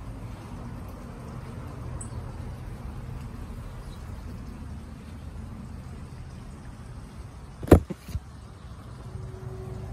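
Steady low background rumble, broken about three-quarters of the way through by a sharp knock and a smaller second one as the handheld phone brushes into grapevine leaves and stems.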